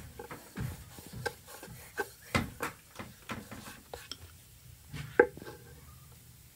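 Wooden rolling pin and kitchen knife knocking and scraping on a wooden pastry board while thin spring-roll wrappers are rolled out and trimmed: a run of irregular light knocks and clicks, the loudest about five seconds in.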